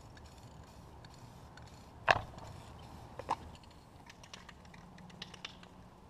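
A sharp knock, then a second, smaller one about a second later, followed by a few light clicks and taps.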